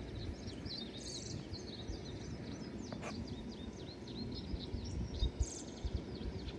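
Many birds chirping in quick, overlapping calls over a low rumble of wind on the microphone, which gusts a few times near the end.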